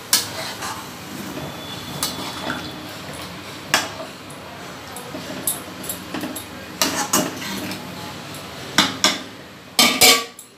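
Metal spoon stirring chicken curry in a steel kadai, scraping and clinking against the pan at irregular intervals, with a louder clatter near the end.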